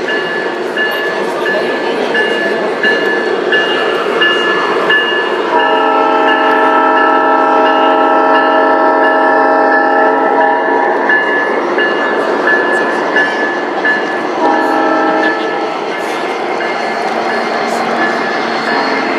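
Sound system of a G scale Conrail C40-8W model diesel locomotive playing a multi-chime horn: one long blast lasting about five seconds starting some five seconds in, and a short blast about a second long near the end. Under it, an evenly repeating ding about twice a second runs throughout over a steady hubbub.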